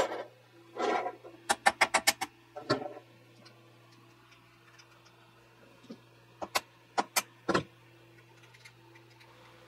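Metal clicks and taps from the lower mechanism of a Consew 226 industrial sewing machine as it is worked by hand: a short rub, then a quick run of about six clicks and a knock, then a few scattered clicks later on. The hook assembly's gear set screws are loose and the hook is being nudged up into alignment.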